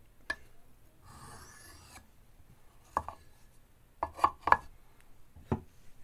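A knife blade drawn once across a soft Arkansas oilstone, a hissing scrape about a second in, followed by several sharp light clicks and knocks as the knife is handled against the stone, three of them close together around four seconds in.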